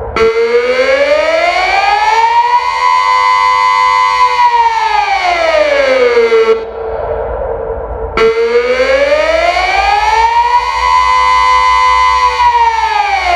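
Delta 6-Blau civil-defence siren sounding the Austrian 'Alarm' signal: a wailing tone that rises, holds high, falls and holds low, repeating about every eight seconds. It is louder at the high pitch, and a new rise starts abruptly just after the start and again about eight seconds in.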